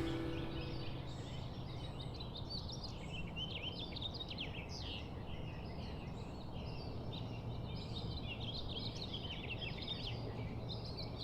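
Birds chirping: many short, quick calls over a steady low background rumble. The last of a saxophone track dies away at the very start.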